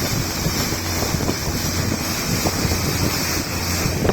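Small boat's engine running steadily under way, with wind buffeting the microphone and water rushing past the hull.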